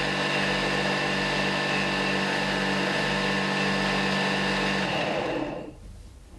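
Homemade wood lathe driven by a 0.6 kW electric motor from a water-pump station, running steadily with a hum and several steady tones while a hand chisel cuts the spinning workpiece. About five seconds in the motor is switched off and the sound dies away quickly.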